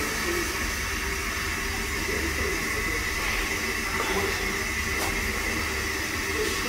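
Steady hiss with a faint, even high tone running through it, with no rhythm or breaks.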